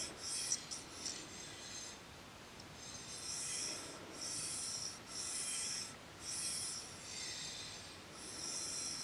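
Hardened, ground steel toolmaker's vise sliding back and forth on a flat surface under a test indicator: a series of short scraping rubs, each under a second, with a quieter stretch about two seconds in.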